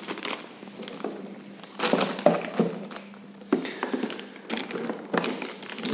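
Plastic bags of fixing screws and wall plugs crinkling and rustling as they are handled and set down in a cardboard box, with a few light knocks.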